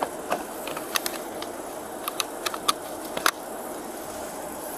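Scattered light clicks and taps of items being handled on a car's hood, over the steady hum of idling vehicles. The loudest click comes about three seconds in.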